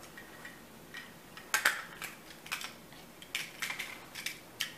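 Scattered faint clicks and taps of two small diecast toy cars being handled and flipped over in the hands.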